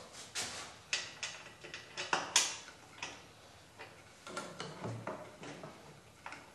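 Irregular clicks and knocks from a hand tool working on the wooden cabinet and cast-iron treadle frame of an old Singer sewing-machine stand during reassembly. The loudest knock comes a little past the middle.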